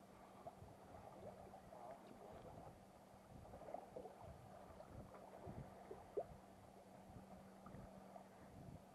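Near silence: faint small water slaps and gurgles against a kayak hull, over a steady low hum.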